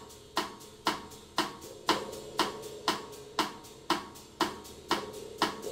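Quiet intro of a music track: a light percussive click about twice a second over a soft held tone.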